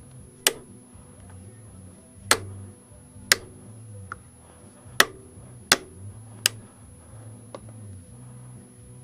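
Sharp single metallic clicks at uneven spacing, about one a second, from a ratchet and hex key working the bottom bolt of a Yamaha Virago front fork leg. The bolt is turning without coming free, which the owner puts down to the damper rod spinning inside the fork tube.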